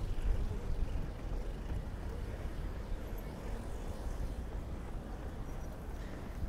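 Steady low rumble of city street ambience, with no single sound standing out.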